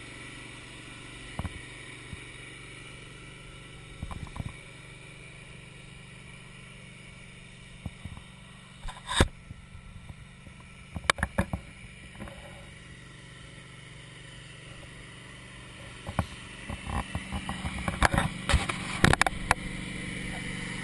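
Wood-Mizer LT15 bandsaw mill running steadily as the blade cuts through a log. Scattered sharp knocks and clanks come through it, most of them near the end.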